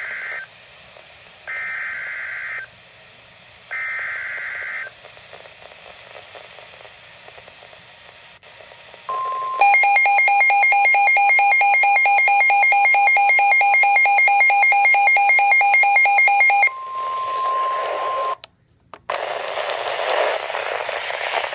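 NOAA Weather Radio emergency alert received through static. It starts with three short bursts of the SAME digital header tones, a warbling data screech. After a few seconds of static hiss comes the steady 1050 Hz weather warning alarm tone for about nine seconds. For most of that tone a louder, rapidly pulsing electronic alarm sounds over it, and crackling static follows after a brief dropout.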